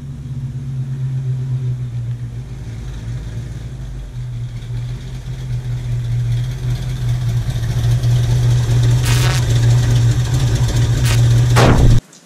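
1966 Ford Mustang's V8 running as the car drives up, getting steadily louder as it approaches, with a few short sharp crackles near the end before the sound cuts off suddenly.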